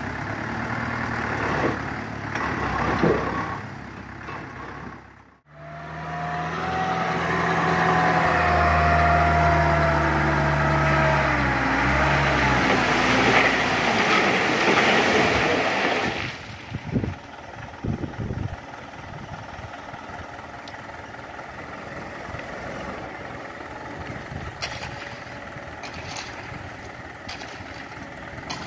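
Diesel dump truck engine held at raised revs to drive the hydraulic tipper while the bed tips out rock and soil, with a whine that glides slowly down in pitch. About halfway through it drops back to a quieter idle, and a few sharp knocks come near the end.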